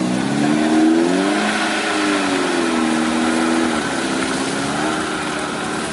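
Off-road jeep's engine revving, its note climbing in the first second, holding, dipping a little around the middle and rising again near the end.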